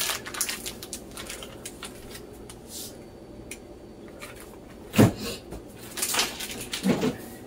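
Low kitchen room hum, then three short, dull knocks in the last two and a half seconds, of the kind made by a cupboard door or kitchen items being knocked or set down.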